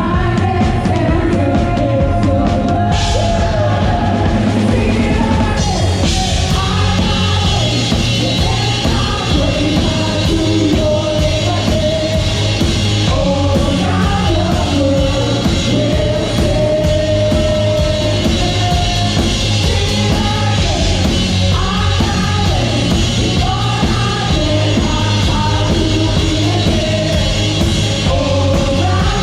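Worship band playing rock-style music: voices singing over a full drum kit, with cymbals coming in a few seconds in.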